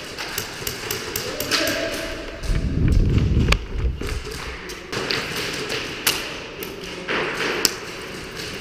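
Thumps and knocks of an airsoft player moving with a body-mounted camera, loudest as a heavy low rumble from about two and a half to four seconds in, with sharp clicks scattered throughout.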